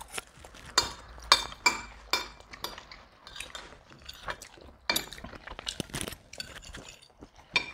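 Forks clinking and scraping on dinner plates while two people eat noodles, in many short, irregular clicks.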